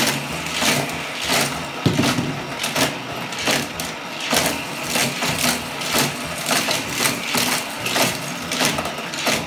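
Hot Wheels Criss Cross Crash track set's battery-powered booster running with a steady low hum, toy cars clattering through it and over the plastic track about twice a second.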